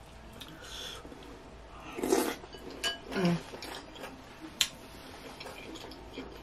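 Close-miked mouth sounds of a person chewing a mouthful of ramen noodles: wet smacks and sharp clicks, with a louder wet burst about two seconds in and a short falling 'mm' hum just after three seconds.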